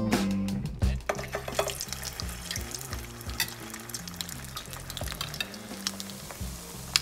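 Salmon patties frying in hot oil in a pan: a steady sizzle with frequent sharp crackles and pops, starting about a second in, and one loud pop near the end.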